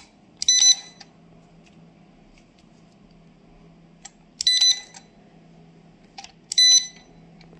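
Handheld RX200 inkjet coding printer with an HP cartridge printing on a plastic pouch in three short passes. Each pass is a brief high-pitched buzz with a rustle: about half a second in, about four and a half seconds in, and near the end, with faint clicks between.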